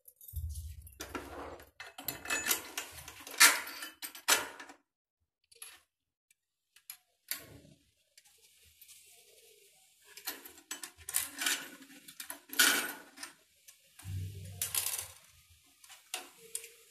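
Metal shower fittings and the stainless-steel concealed body of an overhead shower clinking and rattling as they are handled, in several spells with a quiet pause in the middle. Low handling thumps come just after the start and again about two thirds of the way in.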